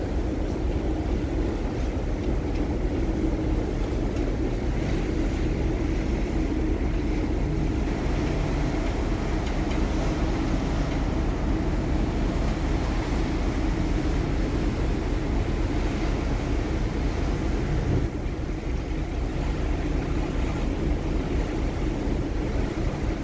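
Steady low rumble of a large car ferry's engines and machinery under way, mixed with wind buffeting the microphone on the open deck.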